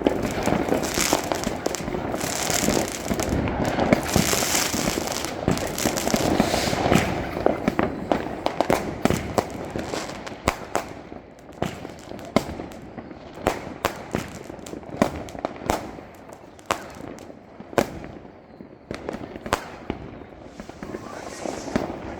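Firecrackers going off: a dense run of rapid bangs and crackling for about the first ten seconds, thinning to scattered single bangs after that.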